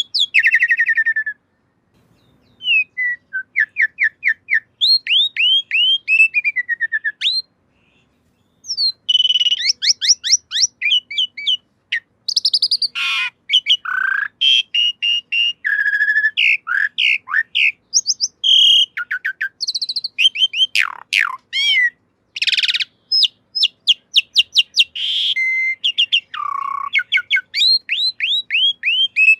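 Javan pied starling (jalak suren) singing: fast runs of sharp, falling chirps mixed with whistles and harsher notes, broken by two short pauses, one about two seconds in and one about a quarter of the way through.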